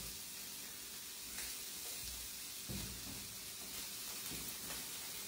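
Octopus tentacle roasting in oil in a nonstick pan, a faint steady sizzle.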